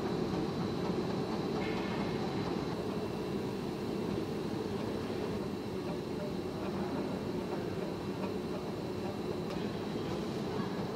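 Steady machine noise, a low hum and rumble with a faint high whine, from a metal FDM 3D printer running in a workshop hall.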